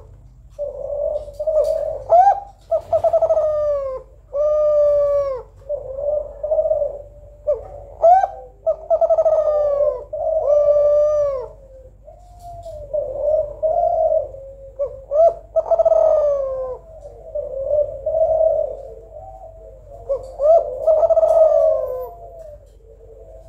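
Female Kelantan spotted dove (derkuku) cooing in a continuous run of short coos, about one a second. This is the gacor female call that is played to get reluctant males to start calling.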